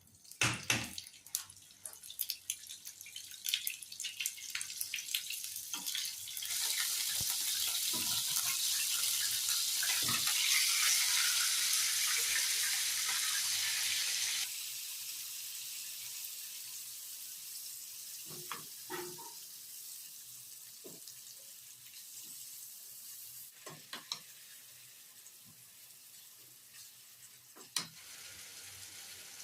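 Kitchen cooking sounds: utensil clicks and knocks, then a loud steady hiss that starts suddenly about six seconds in and cuts off abruptly some eight seconds later, followed by a softer hiss with occasional knocks.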